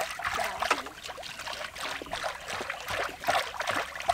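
Cooking oil poured in a steady stream from a plastic jug into a large metal wok, trickling and splashing.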